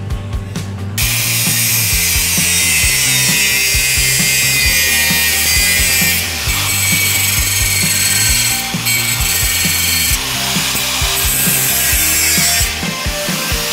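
Angle grinder cutting into a steel motorcycle rear fender: the disc on the metal gives a loud, high, hissing grind that starts about a second in and eases off briefly a few times as the cut is lifted and reset. Background rock music plays underneath.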